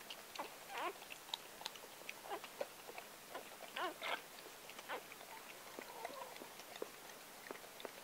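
Gordon Setter mother licking and chewing at a newborn puppy's birth sac: quick wet licks and smacks. Newborn puppies give a few short, high squeals, about a second in, around four seconds in, and a longer one near six seconds.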